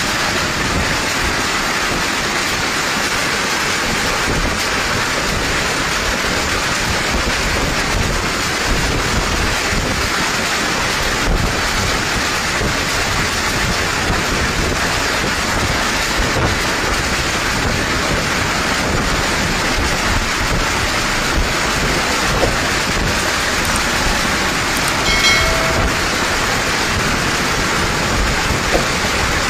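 Cyclone storm: heavy rain and strong gusting wind in a steady, loud roar, the gusts buffeting the microphone with a low rumble. Near the end a brief pitched tone sounds once.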